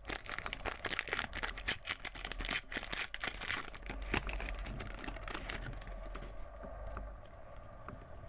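Foil wrapper of a Panini Classics basketball card pack being torn open and crinkled as the cards are pulled out. The dense crackling dies away about six seconds in.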